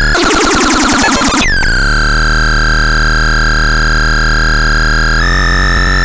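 Electronic synthesizer sound. First a fast warbling, sweeping noise; then a tone glides down and settles into a steady, buzzy held note, which steps up slightly in pitch about five seconds in.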